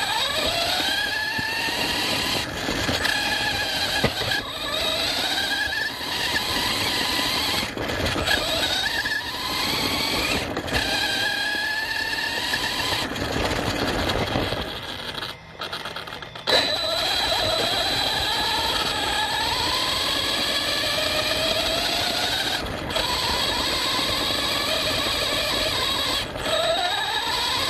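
ARRMA Fireteam 6S RC car's brushless motor and geared drivetrain whining, the pitch rising and falling again and again as the throttle is opened and let off. The sound drops away briefly about halfway through, then picks up again.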